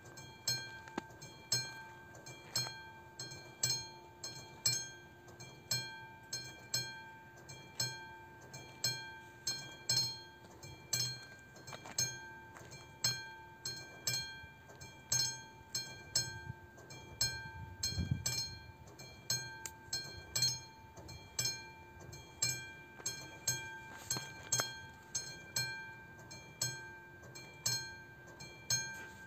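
Level-crossing warning bell at an AŽD 71 crossing, ringing about once a second with a clear bell-like tone, sounding while the red lights flash for an approaching train.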